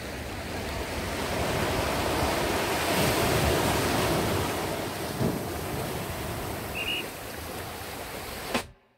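Sea waves breaking and washing up a sandy beach and around rocks, a steady rush of surf that swells and ebbs, cutting off suddenly near the end.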